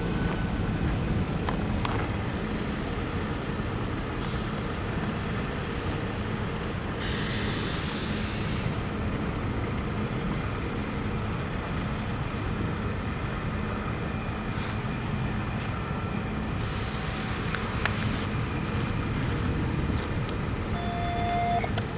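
Steady low rumble of a light-power consist of Union Pacific EMD diesel locomotives approaching slowly from a distance, mixed with road traffic noise.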